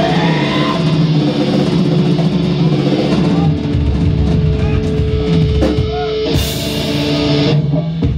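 Live heavy metal band playing: distorted electric guitar, bass guitar and drum kit at full volume.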